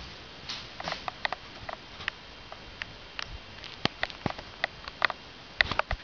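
A kitten nosing and pawing at the camera up close: a scatter of light, irregular clicks and taps, the louder ones coming in the second half with a cluster near the end.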